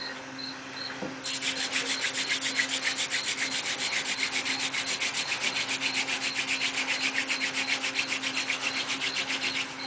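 Hand-drill friction fire: a fireweed spindle spun against a pine fireboard, making dry rubbing in a fast, even rhythm that starts about a second in. An ember is already forming in the dust.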